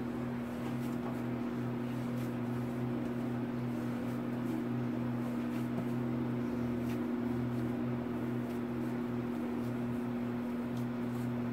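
A steady, even machine hum with a low drone. Beneath it, faint soft taps and pats of hands kneading bread dough on a stone countertop.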